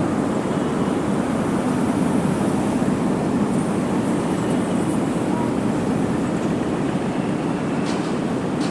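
Steady low rumble of vehicles running, with a couple of faint clicks near the end.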